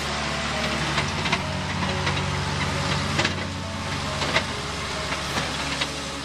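Tractor engine running steadily under load while towing a trailed spreader across a field, with scattered sharp ticks over it.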